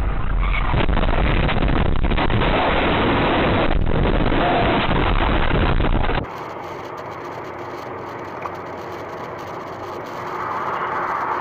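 Steady noise of a car on the move, picked up by dashcams: loud and deep for about six seconds, then cutting suddenly to a quieter road noise that swells slightly near the end.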